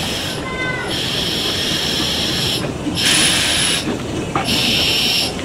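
A 15-inch-gauge steam locomotive moving slowly at walking pace, hissing steam in three bursts about a second and a half apart over a low rumble. A brief faint squeal comes just after the start.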